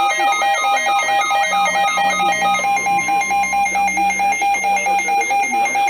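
Weather alert radio's alarm beeping in a rapid, even pulse, with a fainter steady warning tone from the broadcast beneath it for about the first half. It signals an incoming Snow Squall Warning.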